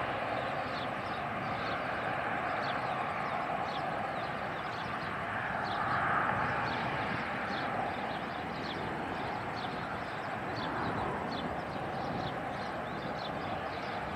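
Steady drone of a de Havilland Canada Dash 8's twin turboprop engines and propellers on final approach to landing, swelling slightly partway through. Small birds chirp rapidly and continuously over it.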